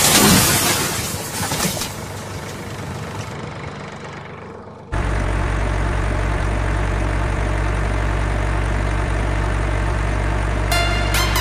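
Truck engine idling sound effect, a steady low hum that cuts in suddenly about five seconds in, after a loud hissing rustle that fades away. Near the end, short falling electronic chirps begin over it.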